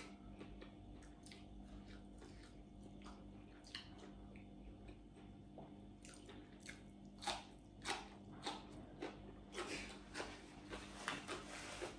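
Faint, scattered crunches and clicks of eating: a person chewing raw vegetables and snapping green stems with her fingers. A low steady hum sits underneath.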